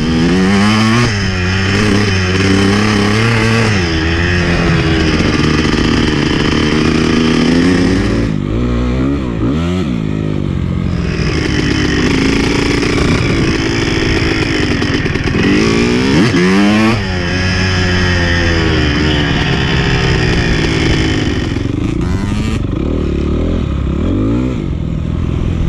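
Dirt bike engine being ridden hard on a trail, its pitch repeatedly climbing as the throttle opens and dropping back between gears and corners.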